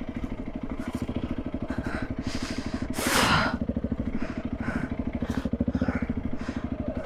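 Honda CRF300L's single-cylinder four-stroke engine running steadily under the rider, heard close through a helmet-mounted camera, with several breaths from the rider over it, the strongest about three seconds in.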